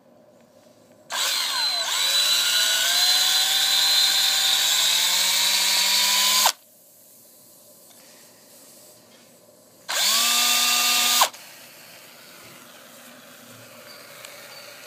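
Handheld power drill boring a hole into a PVC pipe. One run of about five seconds, its motor whine slowly rising in pitch, then a second short run of about a second.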